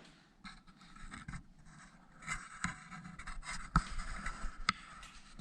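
Irregular scraping and rubbing with small clicks, and two sharp knocks about halfway through, as of things being handled at close range.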